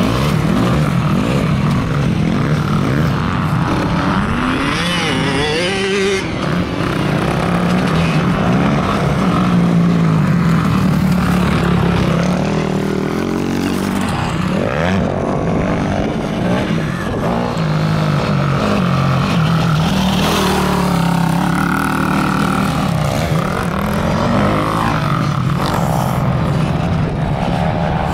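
Sport ATV's single-cylinder engine revving hard and backing off again and again as it is ridden over a motocross track, its pitch rising and falling with each burst of throttle.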